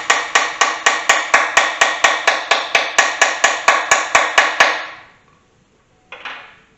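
Fast, even hammer blows on metal, about five a second with ringing between them, as a hammer works at a Pontiac 350 V8's timing cover, which is stuck on a broken bolt. The blows stop about five seconds in, and a single metal clink follows near the end.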